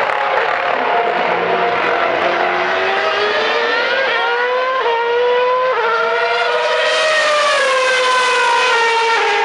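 Formula 1 cars' 2.4-litre V8 engines running at high revs around the circuit, more than one car at once. The high whining notes fall and climb, stepping in pitch at gear changes.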